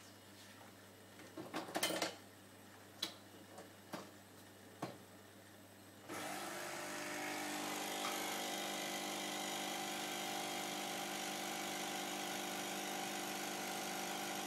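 A few light clicks and knocks, then about six seconds in the Nespresso Citiz's vibratory pump starts with a steady buzzing hum as espresso is brewed into the cup.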